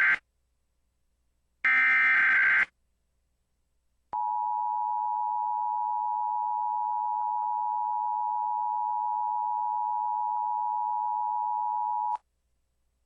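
Emergency Alert System broadcast for an Amber Alert: a one-second burst of SAME digital header data, then the steady two-tone EAS attention signal held for about eight seconds, cutting off with a click.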